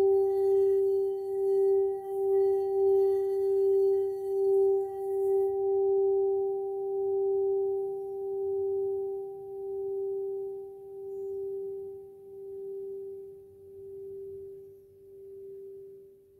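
A 5.5-inch frosted crystal singing cup tuned to G, sung by a mallet rubbed around its rim, sounds one steady note with a fainter octave above it. About five seconds in the rubbing stops and the note rings on alone, slowly fading with a gentle wavering pulse.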